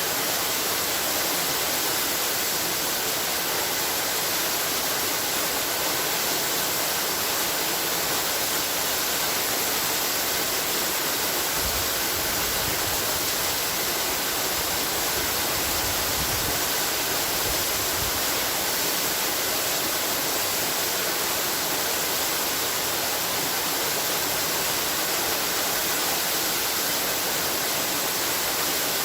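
Waterfall: water pouring and splashing in a steady, even rush, with the strongest sound high up.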